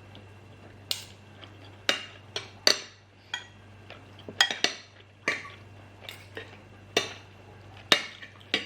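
Cutlery clinking and scraping against a plate of curry and rice while eating: about a dozen sharp, irregularly spaced clinks, some with a brief metallic ring.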